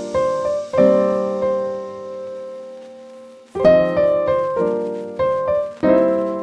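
Background piano music: soft chords struck every second or so and left to ring and fade, with a longer held chord in the middle.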